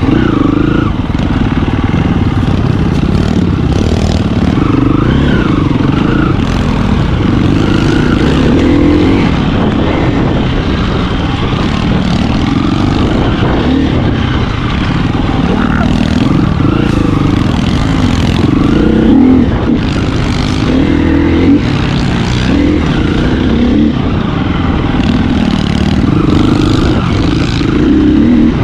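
Single-cylinder four-stroke dirt bike engine being ridden on trail, revving up and easing off every second or two as the throttle is worked.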